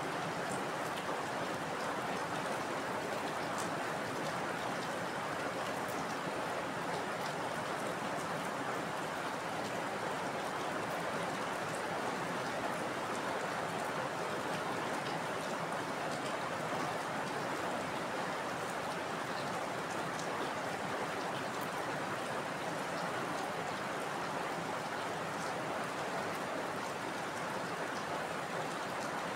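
Steady, heavy rainfall: an even rushing hiss with faint scattered ticks of drops striking, and no thunder.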